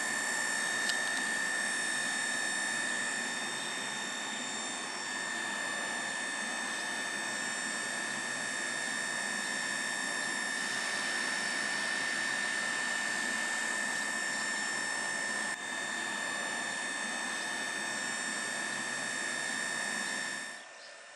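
Bombardier TRAXX electric locomotive (E494) standing with its pantograph raised, its auxiliary equipment (cooling fans and converters) running with a steady whine and a strong high tone over fan noise. The sound cuts off suddenly near the end.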